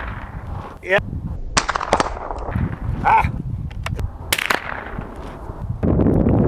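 .22 LR rifle firing CCI Mini-Mag rounds: two sharp shots about three seconds apart. Wind rumbles on the microphone throughout.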